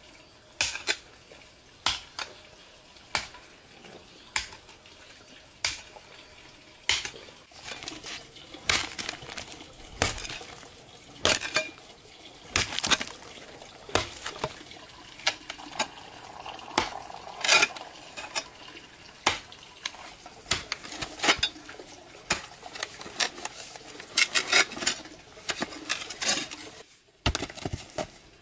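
Kitchenware clinking and knocking: a run of sharp clinks, spaced about a second apart at first, then quicker and more irregular, as dishes and utensils are handled.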